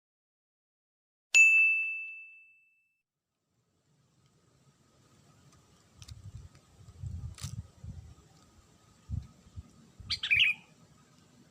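A single bell-like ding about a second in, ringing on one clear pitch and fading away over a second or so. Near the end comes a short bird chirp over faint low rumbling and a few light clicks.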